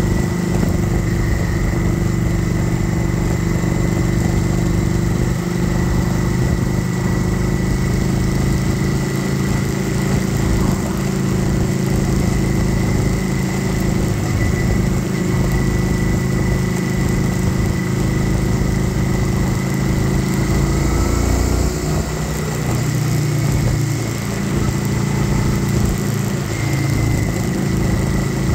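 Kawasaki Vulcan 900 Classic SE's V-twin engine running steadily with the bike under way, over a ragged wind rumble. About three-quarters of the way through the engine note drops, then picks up again near the end.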